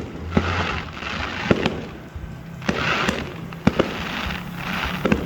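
Aerial fireworks display: a run of sharp bangs from shells bursting, about ten in five seconds, with bursts of hiss between them.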